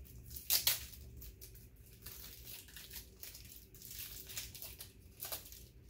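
Crinkling and rustling of a small wrapped packet being opened by hand. There are two louder crinkles, about half a second in and near the end.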